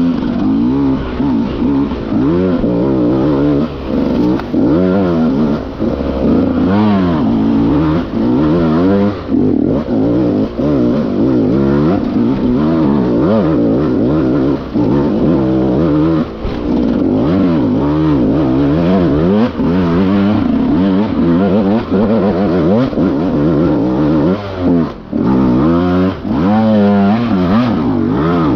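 Enduro dirt bike engine, close up, revving up and down over and over as the throttle is worked, with short drops where the throttle is shut off.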